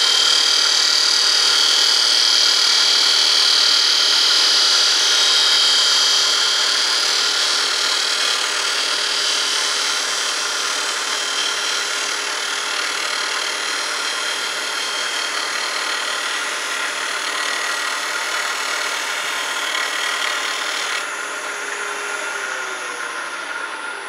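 Grizzly G0800 wood lathe spinning a workpiece at about 2,300 rpm while a turning tool takes a light shear cut, a steady cutting hiss that is loudest for the first several seconds and then slowly fades. Near the end a falling whine comes in as the lathe slows.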